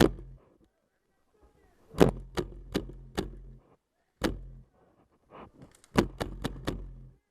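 Airsoft gun fired in quick single shots: sharp snaps in two strings of about four, with one lone shot between them.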